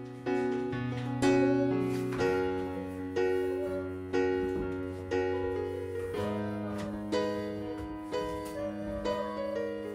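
Background piano music: slow notes and chords struck about once a second, each ringing and fading.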